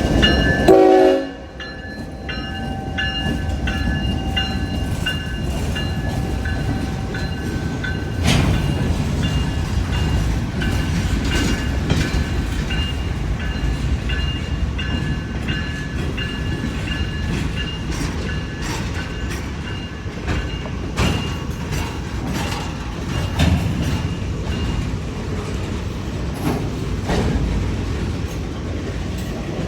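A freight train's air horn cuts off about a second in; then the train rolls past with a steady low rumble of wheels on rail and scattered clicks from the rail joints. Thin, steady high tones run through most of it.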